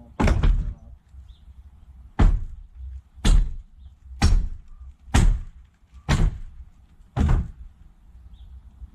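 Heavy hammer blows on the wooden framing of an old chicken coop during demolition: seven strikes at about one a second, each a sharp bang with a deep thud.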